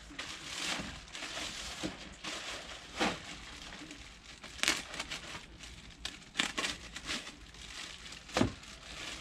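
Plastic wrapping crinkling and rustling as it is handled, broken by a few sharp clicks and knocks spread through.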